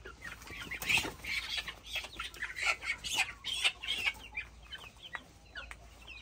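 Month-old chicks peeping over and over in short, high, falling calls. From about one to four seconds in there is scuffling and wing flapping as a chick is grabbed by hand from a wire cage.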